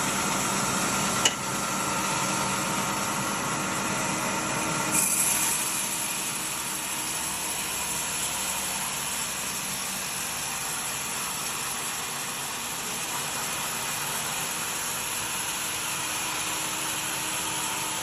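A woodworking power tool running steadily, with a sharp click about a second in and a shift in its sound about five seconds in.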